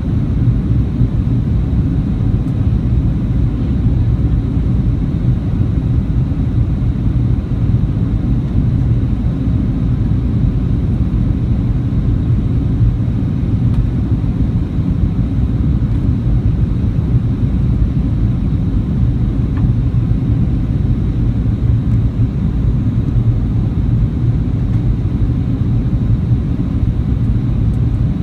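Steady low rumble of a Boeing 737-800's CFM56 jet engines and rushing airflow heard inside the passenger cabin, with a faint steady high tone over it.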